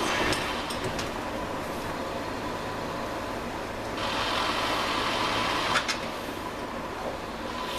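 Steady background hum and hiss, with a few light clicks and taps in the first second and again near six seconds.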